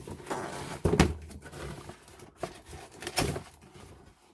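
Cardboard box and packaging being handled and opened: rustling with a few sharp knocks, the loudest about a second in.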